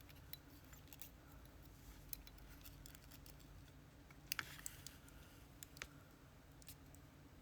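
Faint, scattered light metallic clicks of small lock parts and tools being handled while a disassembled Abus C83 lock cylinder is worked on, over a low steady room hum.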